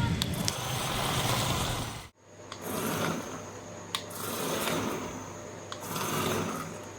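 Small DC gear motors of a toy RC car whirring. The sound cuts off abruptly about two seconds in, then comes back softer, swelling and fading in waves.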